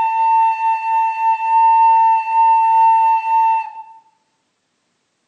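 Recorder playing one long held A (la), steady for about three and a half seconds and then stopping.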